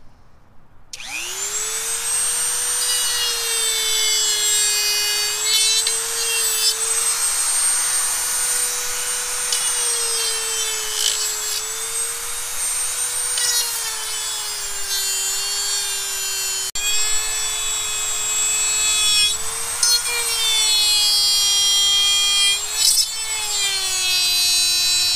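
Dremel rotary tool spinning up about a second in, then grinding away the plastic ring of a speaker bracket with a steady high whine that wavers slightly in pitch.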